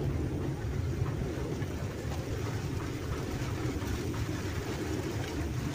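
Wind buffeting an outdoor microphone: a steady, uneven low rumble.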